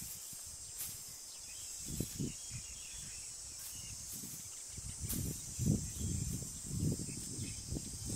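Steady high-pitched insect chorus, with rustling and crunching of dry grass and footsteps that grow louder in the second half.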